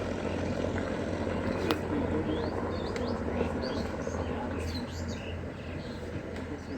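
Small birds chirping repeatedly in short, quick notes, over a steady low hum.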